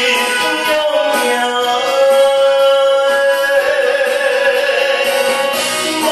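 A man singing a Taiwanese-language ballad into a microphone over a karaoke backing track. He holds one long note from about two seconds in, which begins to waver a second or so later and fades near the end.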